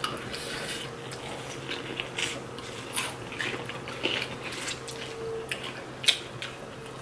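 Biting and chewing corn on the cob coated in crushed Flamin' Hot Cheetos: scattered short crunches and mouth clicks over a low steady hum.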